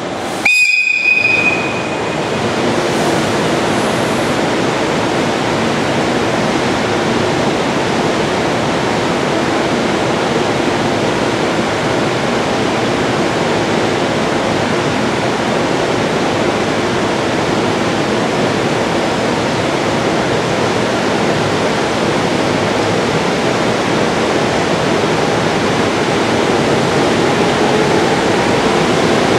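A loud, high departure whistle sounds once, about a second long. After it the JR EF510 electric locomotive runs with a steady noise while it stands. Over the last few seconds a rising whine sets in as its motors start the train moving.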